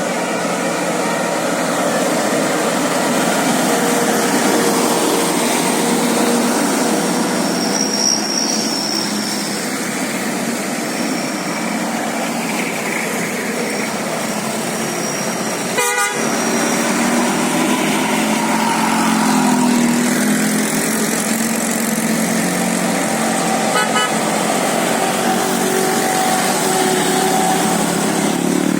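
Tour bus telolet (basuri) musical horn tooting over running engine and traffic noise, with a sharp click about halfway through.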